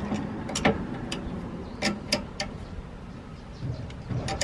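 Sharp metallic clicks at irregular times from a large C-clamp being tightened, pressing a brass bushing into a trailer leaf spring's eye through a socket, over a steady low rumble.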